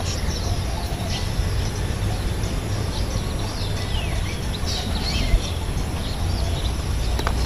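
Small birds chirping and calling in short, quick falling notes, over a steady low background rumble.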